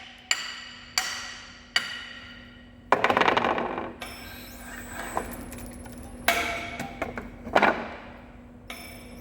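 Steel parts and tools being handled at a metal lathe: a few sharp clanks about a second apart, each ringing on briefly, a short rattling clatter, then two more clanks, over a steady low machine hum.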